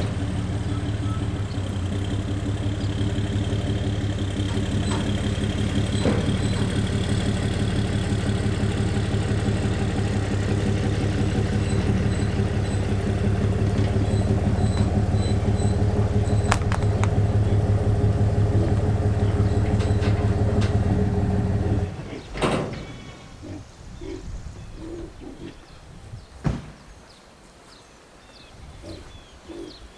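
Pickup truck engine running steadily while the truck is backed up with the livestock trailer, then switched off about 22 seconds in.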